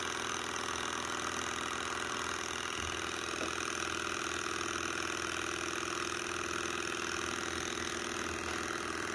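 Bohm HB14 twin-cylinder hot-air Stirling engine running steadily at speed, an even, fast mechanical clatter from its crank linkages and ball bearings, just after being oiled.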